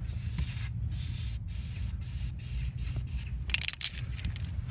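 Aerosol can of purple antiseptic spray hissing in repeated short bursts onto a donkey's freshly trimmed hoof. A brief cluster of sharp clicks comes about three and a half seconds in.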